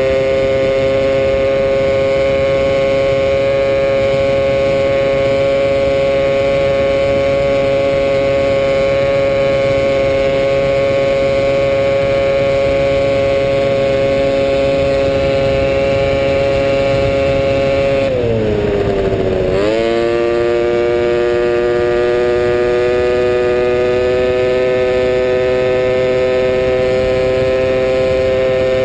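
Polaris Ultra 680 triple two-stroke snowmobile engine in a quad, piped, running at a high, steady pitch while cruising. About two-thirds of the way through the revs dip sharply as the throttle eases off, then climb back and keep rising slowly.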